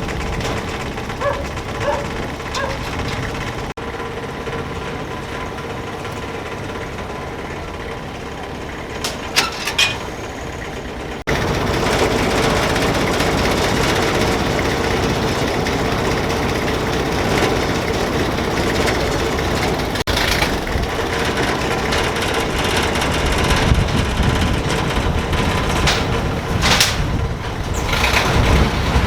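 An engine running steadily with a constant hum, getting louder after about 11 seconds, with a few short clicks and knocks.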